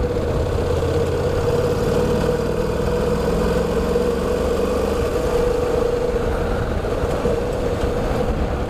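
Honda NC700X's parallel-twin engine running steadily under way on a dirt road, a constant drone with rumble and road noise.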